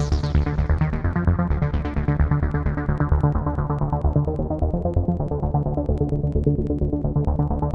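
Waldorf Quantum synthesizer playing a sequenced electronic patch over a pulsing bass, its filter sweeping closed so the sound grows steadily duller over the first few seconds, then starting to open and brighten again near the end.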